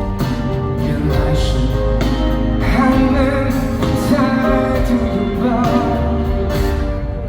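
Live pop concert music: a band playing, with a singer's voice holding long, wavering notes over it from about three seconds in.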